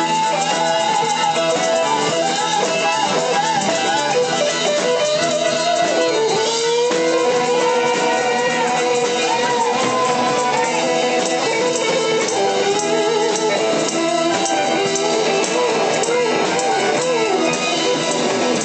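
Electric guitar played loud through an amplifier in a live blues-rock jam, with a lead line of bent, wavering notes and one long held note from about six to eleven seconds in.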